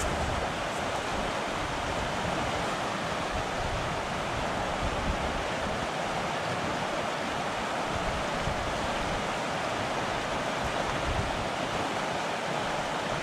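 Swift floodwater of a river rushing steadily, an even unbroken rush of current.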